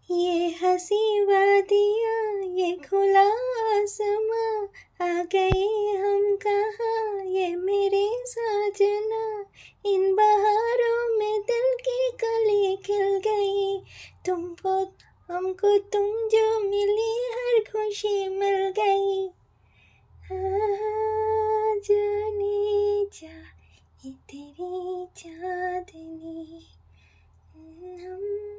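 A high voice singing a slow melody alone, the pitch wavering through long held phrases. It breaks off about 19 seconds in and goes on in shorter phrases.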